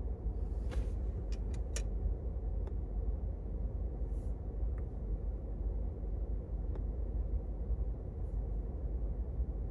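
Steady low rumble inside a car, with a few small clicks and soft puffs about a second in as a man handles and draws on a tobacco pipe.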